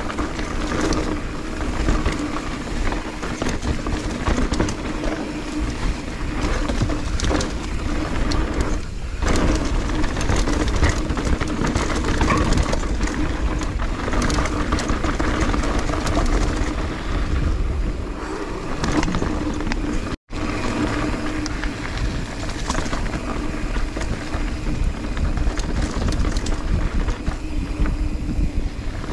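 Transition mountain bike descending a dirt singletrack: tyres rolling over dirt, roots and leaves, with the frame and parts rattling and knocking over bumps and wind buffeting the handlebar-mounted GoPro microphone. The sound cuts out for an instant about twenty seconds in.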